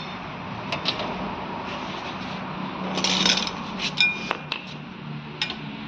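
Metal hand tools clinking and scraping on the Swift's rear hub as a spanner or socket is set to its 14 mm mounting bolts. There are a few sharp clicks, a scrape about three seconds in, and a ringing metallic clink about a second later.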